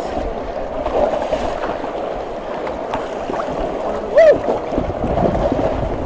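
Water sloshing and lapping close to the microphone at the surface, a steady noisy wash, with one short shout about four seconds in.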